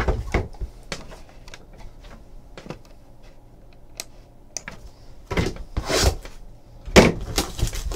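A sealed cardboard trading-card box being handled and opened with a plastic box cutter. Scattered light clicks and taps come first, then a few louder scraping, tearing sounds in the second half as the cutter goes over the box.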